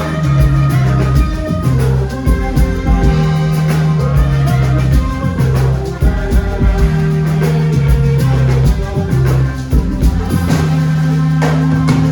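Live band playing an instrumental stretch, with a bass line, drum kit and guitar in a steady beat: Ghanaian gospel highlife.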